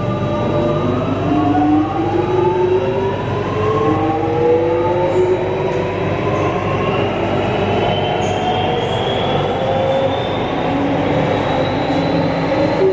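Alstom Metropolis C751A metro train's IGBT-VVVF inverter (Alstom ONIX) and traction motors whining as the train accelerates. Several tones rise steadily in pitch for about ten seconds and level off near the end, over a steady rumble of the train running.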